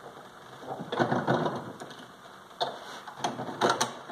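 Clatter and sharp metal clicks from a Total Vise gun vise being worked by hand: its locking lever turned and its pistol-holding head tilted on its pivot. A rattling, scraping stretch comes about a second in, then a few sharp clicks near the end.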